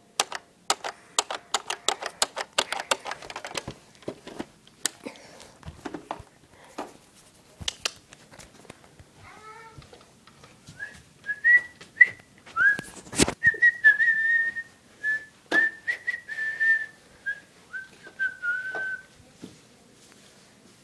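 A person whistling a wavering tune in short held notes, starting about halfway through. Before it comes a run of quick clicks and taps.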